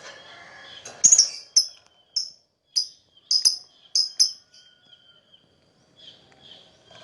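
Lovebird chirping: a run of about nine short, sharp, high-pitched chirps, roughly two a second, starting about a second in, then a few softer chirps near the end.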